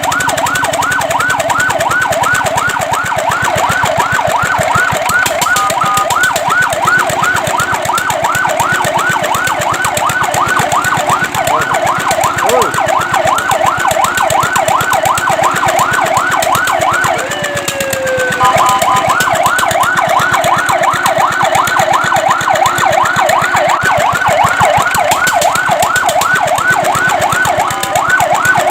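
Fire truck siren on a fast yelp: rapid rising sweeps, about three or four a second. After about seventeen seconds it breaks off briefly with a falling glide, then resumes.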